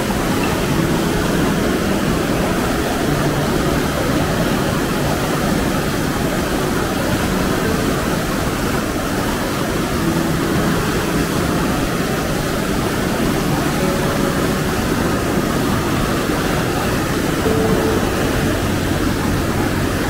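Alibek waterfall's falling water, a loud, steady rush with no breaks.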